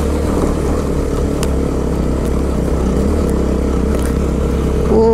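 Motorcycle engine running steadily while being ridden, recorded from a helmet camera, with a few faint ticks. A short voiced 'oh' comes right at the end.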